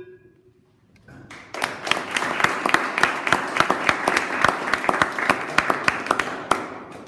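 A small audience clapping, starting about a second in and fading away near the end.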